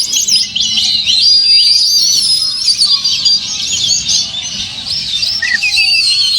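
Oriental magpie-robin (kacer) singing loud and without a break: a rapid, varied stream of whistles and trills. Fainter calls from other birds sound lower down.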